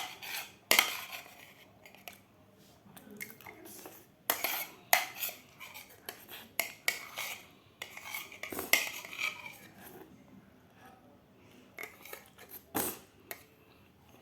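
Cutlery clinking and scraping on a plate while food is cut up, with irregular sharp clinks that ring briefly and quieter scraping between them.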